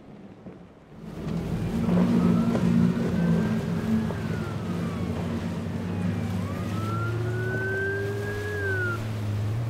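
Motorboat engines running loud, coming up sharply about a second in, with a high tone that rises and then falls, twice.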